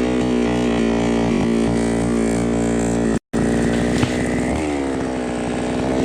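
Himax petrol chainsaw running at high revs as it cuts through a coconut palm trunk, the engine note wavering under the load. The sound drops out for a split second about three seconds in.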